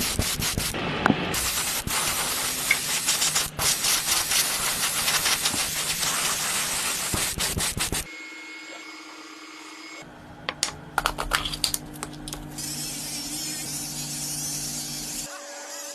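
Rapid rough scraping and rubbing, as of hand-sanding or scraping a surface. It cuts off abruptly about eight seconds in, leaving a quieter steady hum with a few sharp clicks and then a fainter hiss.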